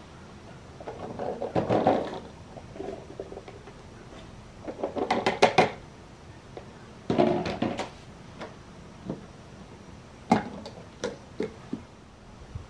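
Plastic packaging being handled at a kitchen worktable: a clear zip bag of garlic cloves and a small plastic container crinkling and rustling, with clicks and light knocks, in four short spells.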